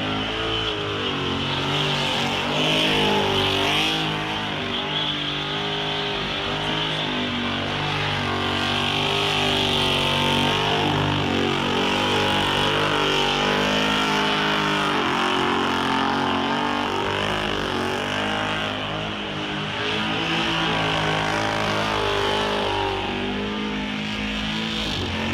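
Methanol-injected small-block V8 ute doing a burnout: the engine is held at high revs, its note rising and falling as the throttle is worked, over the steady screech and hiss of the rear tyres spinning on the pad.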